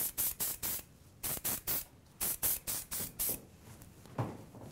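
Aerosol dry texture spray (Davines Dry Texture Spray) puffed onto hair in short increments: about a dozen short hisses in three quick runs, four, then four, then five or six.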